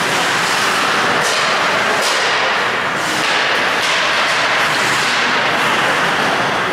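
Ice hockey in play: a steady scraping hiss of skate blades on the ice, cut by several sharp clacks of sticks and puck.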